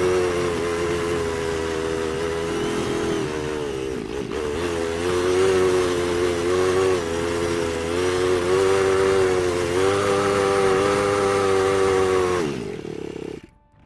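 Polaris Ranger utility vehicle's engine running under way, its pitch rising and falling as the throttle changes. Near the end it drops in pitch and cuts off suddenly.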